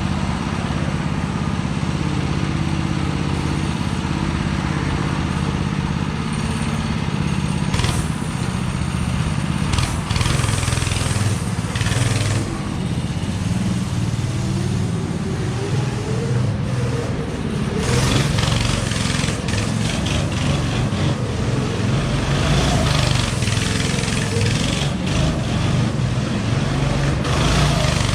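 Go-kart's small engine running as it is driven around, its pitch rising and falling with the throttle.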